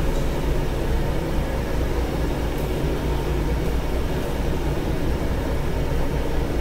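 Steady low rumble of a large car ferry under way: engine drone and hull noise heard on board, with an even hiss over it.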